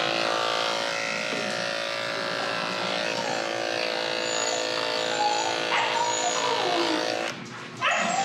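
Corded electric dog grooming clippers running with a steady hum as they shave through a thick coat. The motor stops about seven seconds in.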